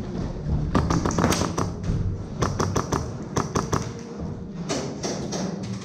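Quick clusters of sharp clicks and taps, several in a row each time, over background music.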